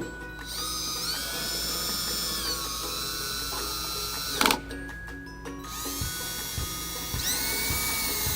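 Cordless drill/driver run in two spells, its whine rising as it spins up, with a sharp click between them. It is driving the taillight's 10 mm screws back in.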